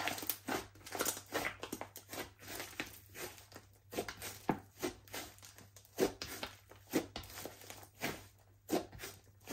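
Slime being squeezed and kneaded by hand, giving an irregular run of sticky clicks and wet pops, several a second.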